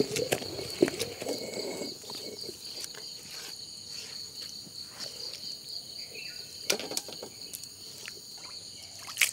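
Insects chirring steadily in the background. Over them come scraping and a few sharp knocks as chutney paste is worked by hand around a stone grinding mortar and scooped out.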